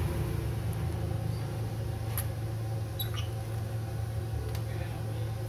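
A few faint clicks and a short squeak as a bare laptop motherboard and its power-button board are handled, over a steady low hum.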